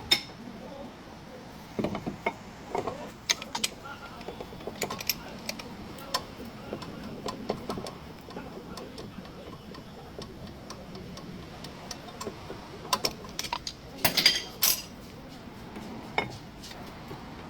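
Irregular metallic clicks and clanks of tools and metal parts being handled and set down during front brake work, loudest in a cluster of knocks near the end.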